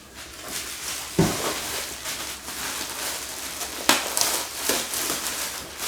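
Rustling of packaging as chair cushions are unwrapped and handled, with a soft knock about a second in and another near four seconds.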